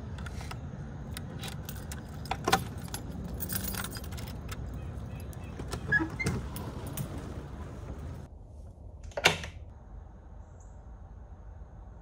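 Key turning in a newly fitted brass deadbolt on a school bus's split entry door, with keys jangling, then clicks and knocks as the door is worked. A single sharp click, the loudest of all, comes about three quarters of the way through.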